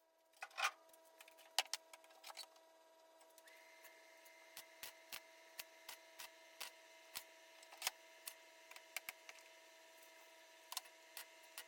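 Faint steady hum, with another tone joining about three and a half seconds in, under scattered light clicks and ticks that come irregularly, a few a second at most.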